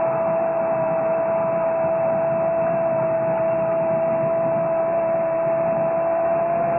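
A football commentator's long drawn-out goal cry, a single high note held steadily for the whole stretch, over stadium crowd noise.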